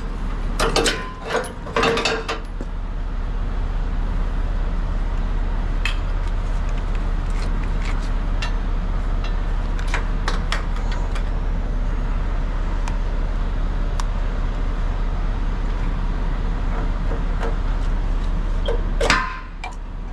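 Diesel truck engine idling steadily, with scattered faint clicks of metal hitch parts being handled. In the first two seconds a spray can hisses in a few short bursts at the converter dolly's hitch, and there is one brief loud noise near the end.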